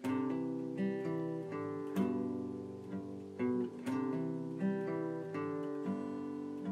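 Outro background music: an acoustic guitar plucking and strumming a gentle melody, with a new note or chord about every half second to second.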